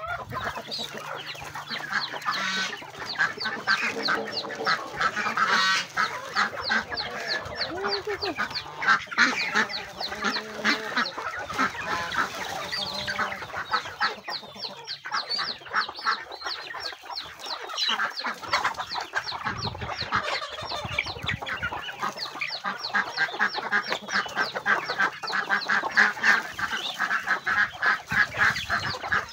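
Farmyard chickens clucking and white domestic geese honking together, a dense, continuous chatter of short calls.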